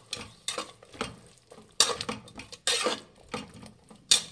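Slotted steel spatula scraping against an aluminium pressure cooker while stirring masala paste into frying onions, tomatoes and peas, in short uneven strokes about two a second.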